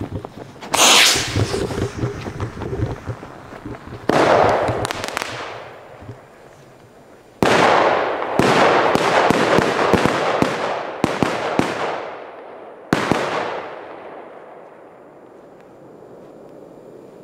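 Flash bangers and effect charges going off: a single sharp bang about a second in, another a few seconds later, then a rapid string of about eight bangs in close succession and one last bang, each dying away in a rumbling echo.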